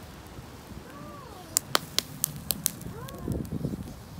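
Barbecue fire crackling and popping in a quick run of sharp clicks, with two short rising-and-falling calls, one about a second in and one about three seconds in.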